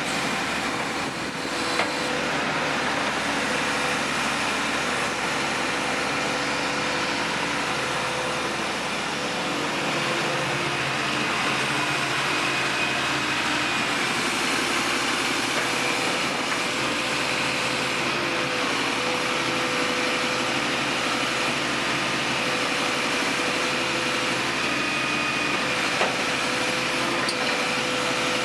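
1998 Caterpillar 320BL excavator running, its diesel engine going steadily with a high, steady whine over it.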